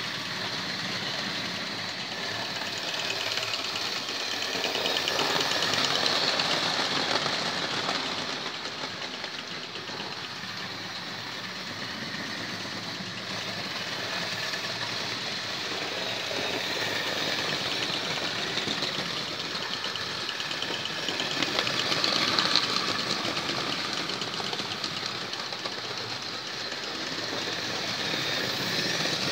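Electric model trains running on a model railway: motors whirring and wheels clattering over the track in a steady mechanical rattle. It swells twice, about six seconds in and again a little past the twenty-second mark, as trains pass close by.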